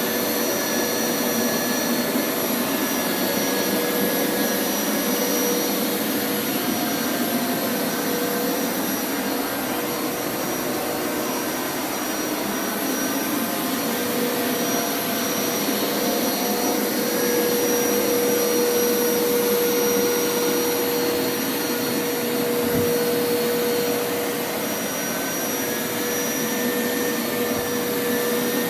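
Hoover Power Scrub Elite carpet washer running steadily, a continuous motor whine with a level that swells and dips a little.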